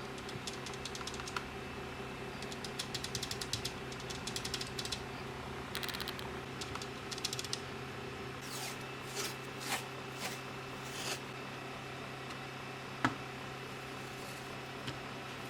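Keys of a Digital Alliance Meca 8s mechanical keyboard with Outemu switches being typed on in several quick bursts of rapid clicks, then a few slower, heavier single key strokes and one sharp click near the end, over a steady low hum.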